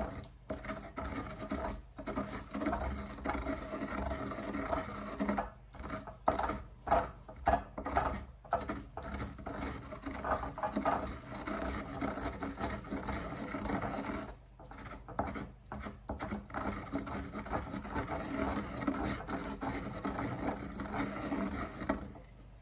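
Wooden pestle grinding umeboshi plum flesh in a ceramic suribachi mortar: continuous, uneven scraping and rubbing of wood against the bowl, with a few brief pauses.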